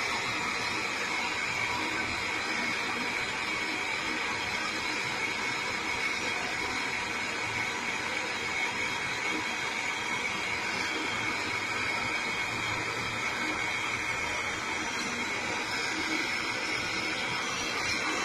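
Handheld butane-canister torch flame hissing steadily as it heats a copper tube joint on a refrigerator compressor for brazing.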